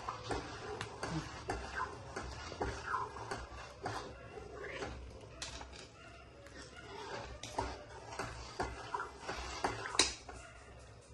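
Metal ladle stirring thick dal palak in an aluminium kadhai, clinking and scraping against the pan in irregular clicks, with a sharp knock about ten seconds in. A few short faint animal calls sound behind it.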